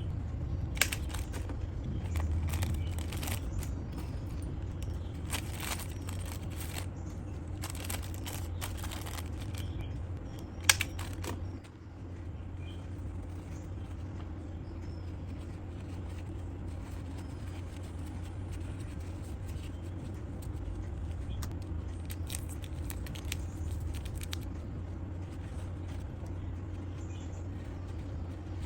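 Steady low hum under scattered handling noises of small objects: clicks, light knocks and rustling, busiest in the first half, with one sharper click about eleven seconds in.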